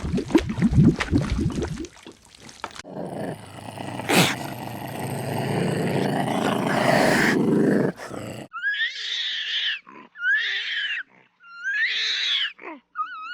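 Animal calls in three parts: low growling for about two seconds, then a long, noisy call, and from about eight seconds on a run of four short, high-pitched calls that rise and bend in pitch.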